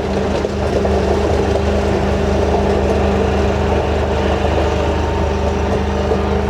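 Engine of a work vehicle running steadily at an even speed, a constant low hum.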